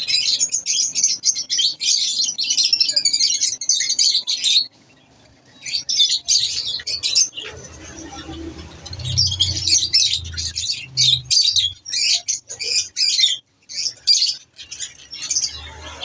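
Caged budgerigars and lovebirds chirping and chattering as a flock, a dense run of quick high chirps with two short pauses about five and seven seconds in.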